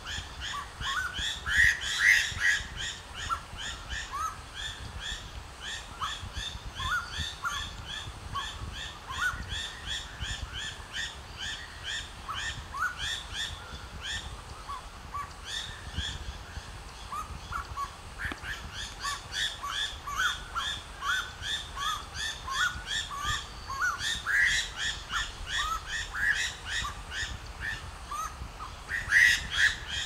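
Striated laughingthrush calling: a fast, steady run of short rising chirps, several a second, with louder phrases about two seconds in and again near the end.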